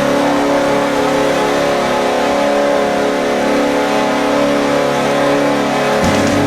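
The Nashville Predators' old arena goal horn blaring in one long steady blast, several pitches sounding together. Music starts up near the end as the horn gives way.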